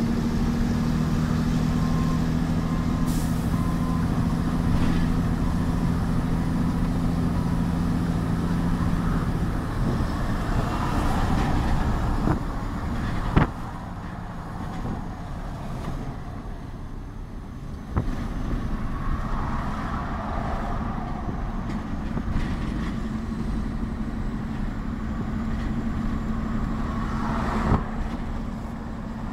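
Mercedes-Benz mixer truck's diesel engine running on the road, heard from inside the cab with road noise, on a road test for a reported lack of pick-up. A steady engine drone runs for the first half, then a sharp click comes about halfway through and the sound drops noticeably quieter, with another click a few seconds later.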